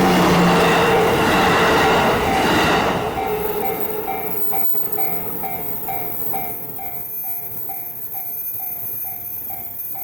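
E235 series Yamanote Line electric train running past over the level crossing, its wheel and rail noise loud until it falls away about three seconds in. After that the level crossing's electronic warning bell is left ringing steadily at about two strikes a second.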